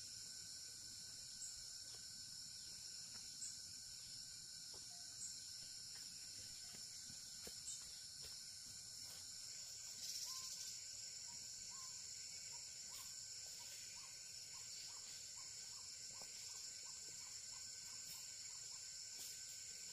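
Faint outdoor insect chorus: steady high-pitched trilling of crickets or similar insects that does not let up, with a run of short, quick chirps joining about halfway through.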